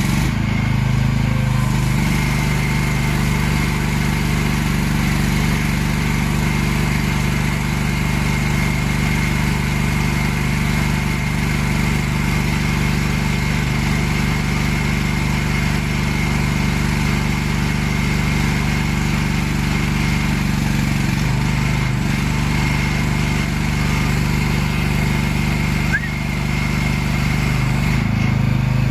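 Single-cylinder engine of a one-ton mini excavator running steadily under load while it drives a hydraulic post hole digger auger into the ground, with a steady high whine over the engine note. The engine note shifts about three-quarters of the way through and again near the end.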